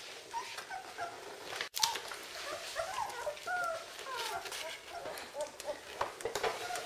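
Young Czechoslovakian wolfdog puppies whimpering and squeaking: many short, high, wavering calls from several pups overlapping, with a few soft clicks of handling.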